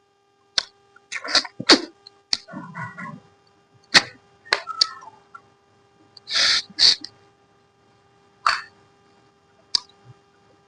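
Close-miked eating: irregular mouth smacks and clicks while chewing, with a few short slurping sucks, the loudest about six and a half seconds in. A faint steady electrical hum sits underneath.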